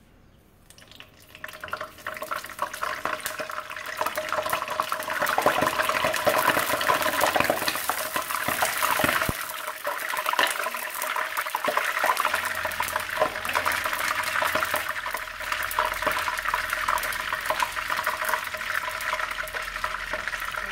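Hot cooking oil in a nonstick wok sizzling and crackling after a few drops of lime juice are squeezed into it. The juice hitting the oil makes it spit. The sizzle starts about a second in, builds over the next few seconds and keeps crackling steadily.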